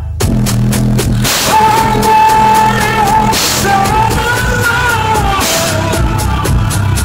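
A song with singing and a drum beat played loud through a car audio system, with heavy bass from three Xion subwoofers. The music cuts in abruptly right at the start.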